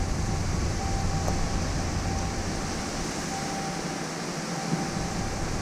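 Steady wind and road noise of a car driving slowly with its window open. The low rumble eases about three seconds in and returns near the end.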